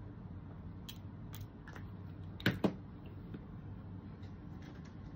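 Light clicks and taps of a paint pen being handled on a craft table, the loudest a sharp double click about two and a half seconds in, over a low steady room hum.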